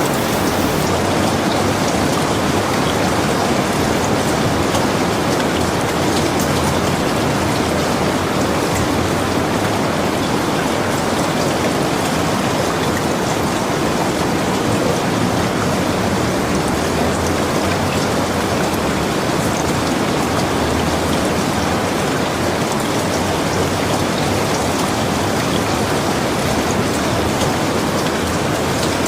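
Rain falling steadily, a dense continuous wash of noise with scattered individual drop hits.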